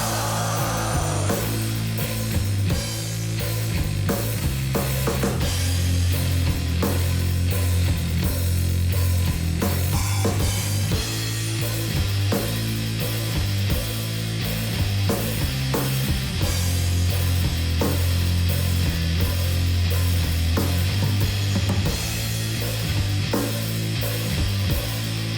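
Three-piece stoner rock band playing an instrumental passage: a loud riff on guitar and bass sits low and heavy over a driving drum kit, with the cymbals thickening about eleven seconds in.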